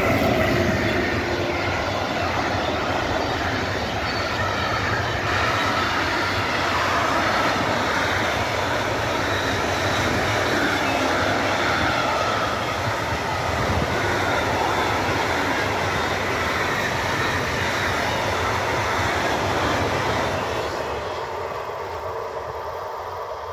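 Electric-hauled intermodal freight train passing close at speed: steady, loud rolling noise of the wagons' wheels on the rails as the semitrailer- and container-carrying wagons go by. The noise fades near the end as the train draws away.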